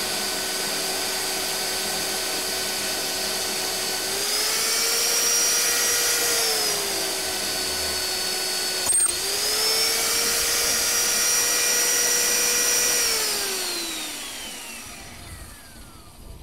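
Magnetic drill motor whining as an annular cutter bores an 11/16-inch hole through a steel truck frame rail. Its pitch rises twice, with a sharp click about nine seconds in, then winds down near the end.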